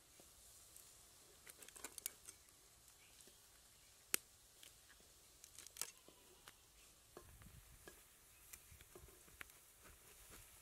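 Scattered clicks and short scrapes of a catfish being drawn and cut against the edge of a boti, a curved floor-mounted blade, over faint background; the sharpest click comes about four seconds in.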